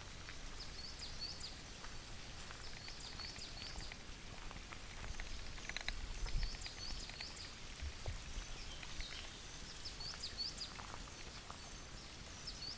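A songbird singing short phrases of quick high chirps, repeated every two to three seconds, over a low rumble that swells about halfway through.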